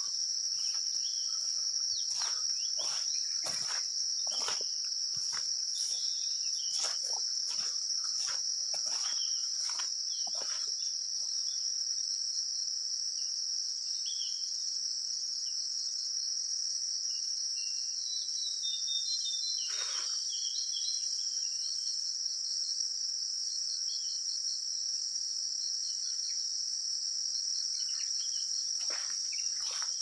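Steady, unbroken high-pitched drone of insects in the forest, with irregular rustles and clicks close to the microphone during the first ten seconds or so, once around twenty seconds in, and again near the end.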